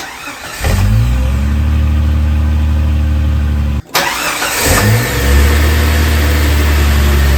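Jeep TJ engine started twice. Each time a brief stretch of cranking noise gives way to the engine catching with a short rise in pitch, then settling into a steady idle. The first run cuts off suddenly about four seconds in before the second start.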